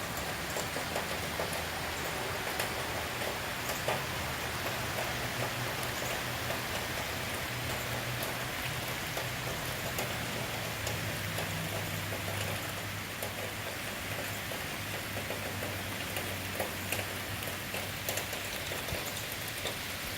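Steady rain falling, with scattered sharp drop hits through it.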